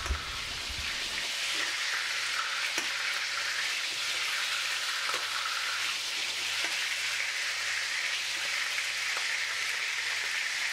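Meatballs frying in shallow oil in a frying pan: a steady sizzling hiss, with a few faint clicks of a spoon in the pan as they are lifted out.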